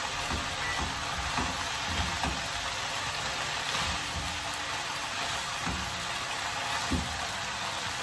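Shredded cabbage, pork and chicken sizzling in a frying pan as they are tossed with a wooden spoon and spatula, with a few soft knocks of the utensils against the pan.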